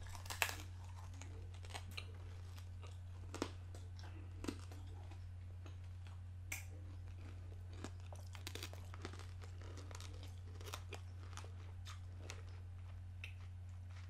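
Someone chewing a bitten-off Tootsie Pop, the hard candy shell crunching between the teeth in irregular bites. The crunches are loudest and most frequent in the first few seconds and thin out to small ones later, over a steady low hum.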